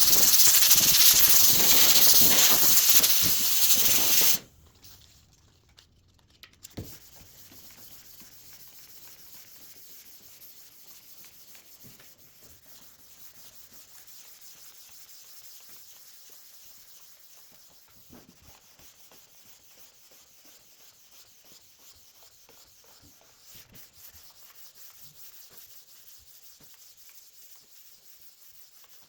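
Sanding of a wood surface coated with sanding sealer: a loud, even scratching hiss that stops about four seconds in. After it there is only a faint hiss with a few light taps.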